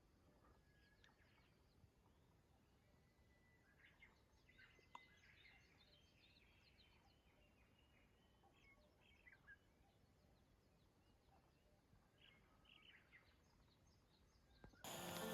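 Near silence of the outdoors, with faint, scattered bird chirps and calls. Music starts suddenly near the end.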